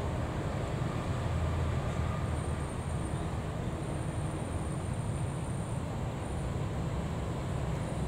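Steady low rumble of road traffic mixed with an approaching diesel-electric locomotive, no horn sounding.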